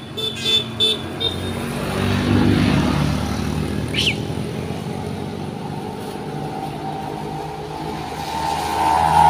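Motorcycles passing on the road, their engines swelling and then fading, with a few quick high beeps at the start. A van's engine is heard approaching and growing louder near the end.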